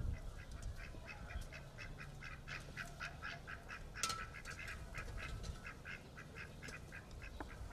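Ducks quacking in a fast run of short calls, about five a second.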